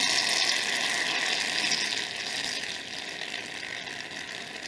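Aerosol can of Barbasol shaving cream spraying foam into a bowl: a steady hiss that fades slowly and cuts off suddenly near the end as the nozzle is released.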